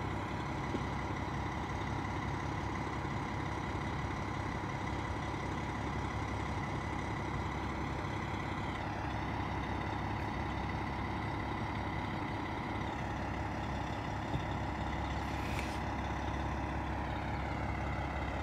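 Charter motor coach's diesel engine idling steadily, with a short hiss of air, typical of the coach's air brakes, about three-quarters of the way through.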